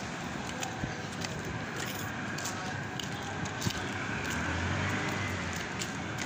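Night city street ambience heard while walking: a steady wash of traffic and street noise with scattered small clicks, and a low rumble that swells briefly about four seconds in.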